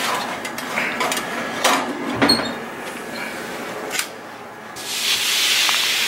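Metal clatter of tongs and a baking pan being drawn off an oven rack: a handful of sharp knocks and scrapes, the loudest about two seconds in. From about five seconds in, a steady hiss.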